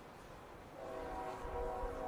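Norfolk Southern freight locomotive's air horn sounding a steady chord, starting about a second in and held, over wind rumbling on the microphone.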